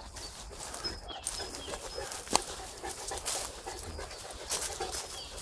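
Neapolitan mastiff panting while moving through woodland undergrowth, with leaves and brush rustling and one sharp snap about two seconds in.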